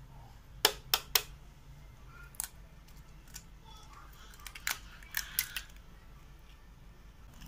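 An egg tapped sharply three times in quick succession against the rim of a plastic food chopper bowl to crack it, about a second in. Later come fainter clicks and a short cluster of taps from the egg and the chopper's plastic parts being handled.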